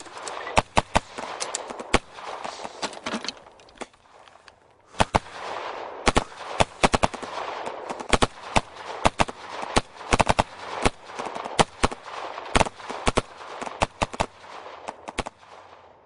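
Heavy gunfire: many shots in quick, irregular bursts, with a lull about four seconds in. The firing stops shortly before the end.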